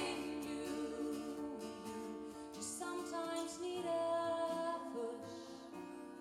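Live pop ballad: a woman sings lead with backing harmonies, accompanied by acoustic guitar and keyboard. The music fades down toward the end.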